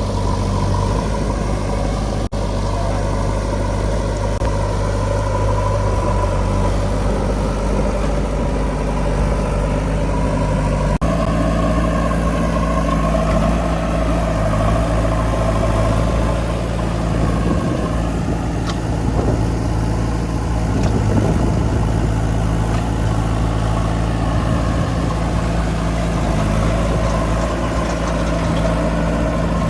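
Heavy diesel engine of a backhoe loader or tractor running steadily. Its note changes abruptly about two seconds in and again about eleven seconds in.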